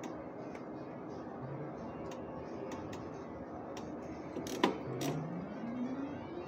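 Three-reel IGT dollar slot machine playing spins: light sharp clicks every half second or so as the reels turn. A sharp clack comes about four and a half seconds in, then a tone rising in pitch as the reels spin again, over a steady background hum of casino machines.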